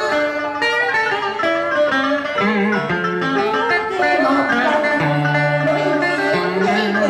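Instrumental interlude of Vietnamese đờn ca tài tử music: plucked string instruments, a guitar among them, playing a flowing melody, with a deep note held for about a second in the second half.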